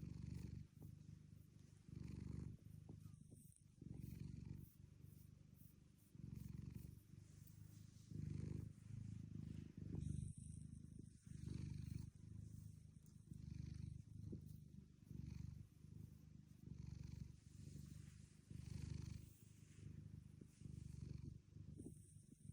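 Cat snoring in its sleep: a soft, low rasping rumble on each breath, rising and falling about once every one and a half to two seconds.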